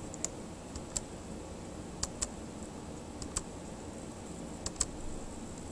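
About seven sharp, irregularly spaced clicks of computer input advancing slide animations, over a faint steady background hiss.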